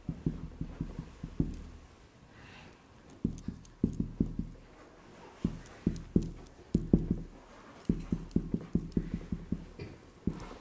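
Quick, soft, dull knocks and taps in irregular clusters, with a pause of about a second and a half near the start.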